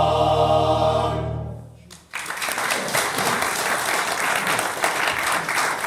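Male voice choir holding its final chord, which fades away in under two seconds. After a brief hush, audience applause breaks out suddenly and carries on.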